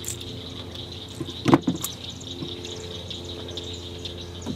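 Insects and birds chirping steadily over a steady low hum, with one brief knock about a second and a half in while the hooked bass is handled in the canoe.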